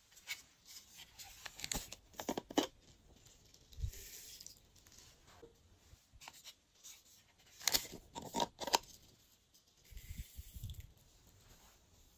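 Glossy slime being worked and pulled apart: irregular sticky crackles and snaps, with clusters of louder pops about two and eight seconds in.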